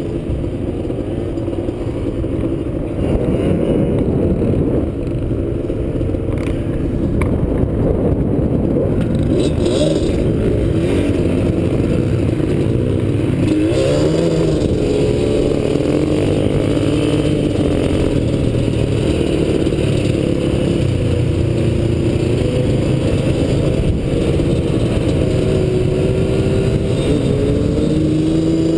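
Yamaha sport ATV engine running under the rider, its pitch rising and falling with the throttle as it is ridden over sand. It is a little quieter for the first few seconds, then runs louder and steady, rising in pitch near the end.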